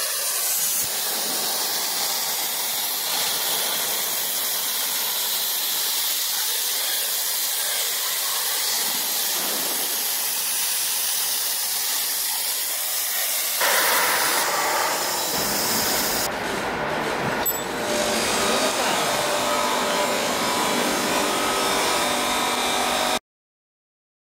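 Plasma torch of a portable CNC cutting machine cutting steel plate: a steady, loud hiss from the arc and air jet. The sound changes about halfway through, taking on more low rumble, and cuts off abruptly near the end.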